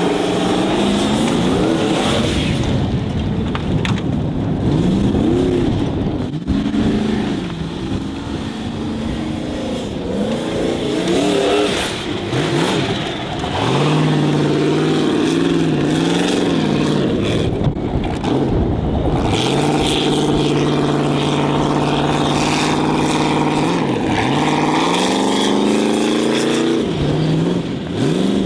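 Formula Offroad racing buggy's V8 engine revving hard, its pitch climbing and dropping again and again as the throttle is worked, with a stretch of several seconds held at steady high revs past the middle.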